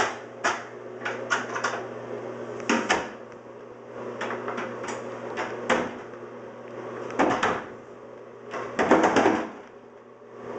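A series of irregular knocks and clicks, some single and some in quick clusters, the loudest cluster near the end, over a steady low hum.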